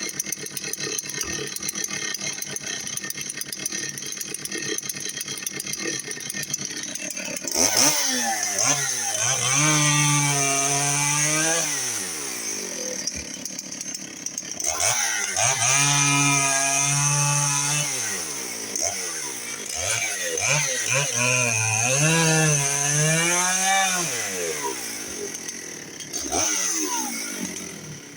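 Dolmar 6400 two-stroke professional chainsaw running steadily, then opened up to full throttle at about seven seconds and bucking firewood logs. Its engine pitch sags under load through three long cuts and rises again between them before it drops back near the end.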